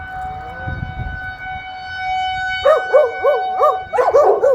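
Federal Signal 2001-130 outdoor warning siren sounding a steady tone. About two and a half seconds in, a dog starts barking in a quick string of barks, roughly three a second.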